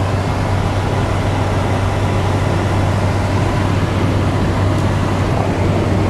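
Steady road and engine noise inside a moving Jeep Wrangler's cabin, with a strong low drone under an even rush.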